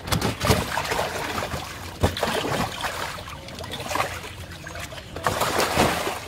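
A large fish thrashing in a water-filled, tarpaulin-lined holding tank, splashing in several bursts, the heaviest near the start and again near the end.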